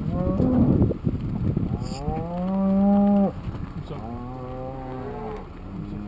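Cattle mooing: a short call right at the start, then three long, drawn-out moos one after another, the loudest about two seconds in.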